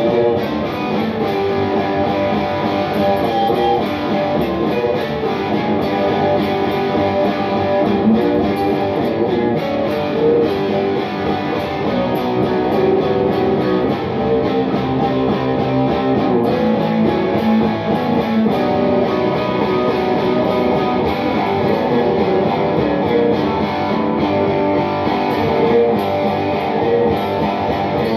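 Black Telecaster-style electric guitar being strummed and picked continuously, a steady run of chords and single notes.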